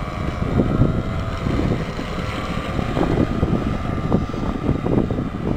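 Wind buffeting the microphone, the loudest sound, over the faint steady drone of a Sopwith Pup biplane's engine as it flies past overhead.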